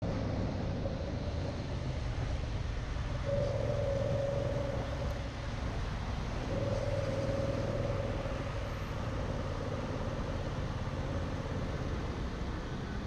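Yamaha MT-07's parallel-twin engine running steadily on the move at moderate speed, with no hard revving, under a continuous rush of wind and road noise.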